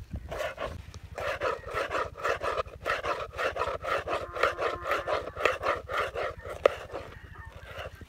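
Knife chopping a tomato against a plastic plate: rapid, regular knocks, about three to four a second.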